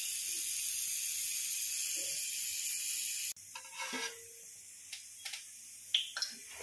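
Slices of kaath alu (wood potato) frying in hot oil, a steady sizzle that cuts off suddenly a little past three seconds in. After that come a few faint clicks and taps.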